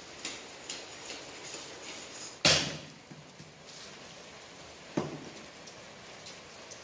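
Two sharp knocks: a loud one about two and a half seconds in and a lighter one with a short ring about five seconds in, over a few faint ticks.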